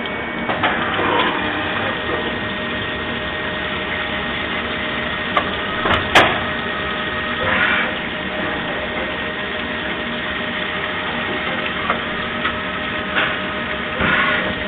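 Mori Seiki MV Junior CNC vertical machining centre milling valve bodies under flood coolant: steady spindle and cutting noise with a steady tone, coolant splashing over the workpieces, and a sharp click about six seconds in.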